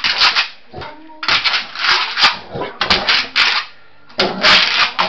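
Boxer dog's front paws scrabbling and scratching against a wall in several bursts, with sharp claw clicks.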